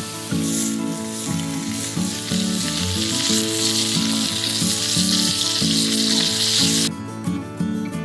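A steady sizzling hiss under background music. The hiss grows louder, then cuts off abruptly about seven seconds in, while the music carries on.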